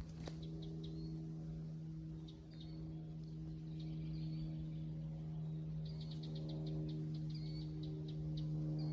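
Songbirds chirping, short twittering calls that come more often in the second half, over a steady low hum that is louder than the birds.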